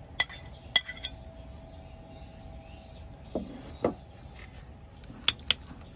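Kitchen utensils clinking against dishes: a few sharp ringing clinks near the start and twice more near the end, with two duller knocks in between.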